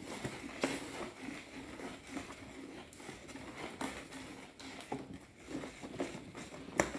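A wooden spoon stirring thick liquid-soap mixture in a bowl: faint, uneven swishing, with a few light knocks of the spoon against the bowl. The stirring is what thickens the soap.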